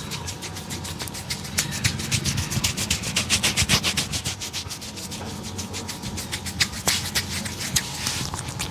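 Hands rubbing briskly over a person's head and hair in a head massage, a fast, even run of strokes several to the second.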